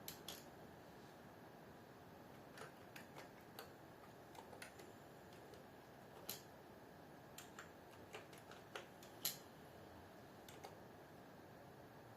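Irregular keystrokes on a computer keyboard: scattered short clicks, one louder tap about nine seconds in, over a faint steady hiss.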